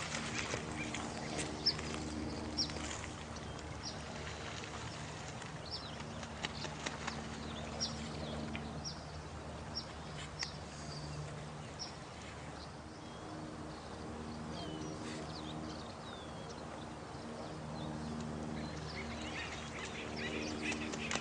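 Night nature ambience: a steady wash of running water, with low, croaking animal calls that come in stretches of a few seconds and short high chirps about every second or two.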